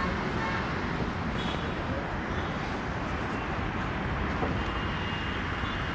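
Steady road traffic noise, an even hum and rush with no single vehicle standing out.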